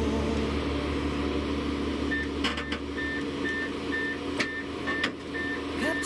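Volvo EC210D excavator's diesel engine running under load as it tracks up onto a truck's loading ramp, with its travel alarm beeping about twice a second from about two seconds in. A few sharp metallic knocks from the steel tracks on the ramp.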